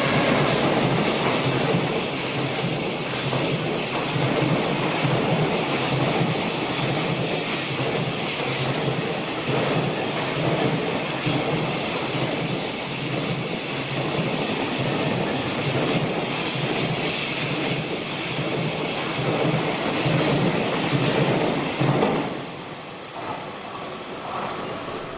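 Long freight train of container wagons rolling past close by, a continuous loud clatter of wheels on rails. The sound drops away sharply about 22 seconds in as the last wagon passes.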